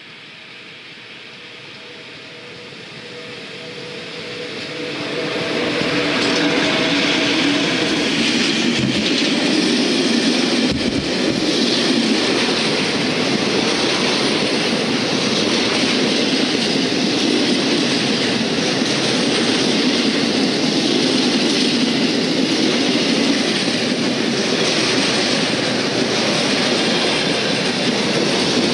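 Freight train headed by an FS Class E655 electric locomotive approaching and passing close by. It grows louder over the first six seconds, then its long string of intermodal wagons carrying semi-trailers rolls past with a steady loud rumble of wheels on rail.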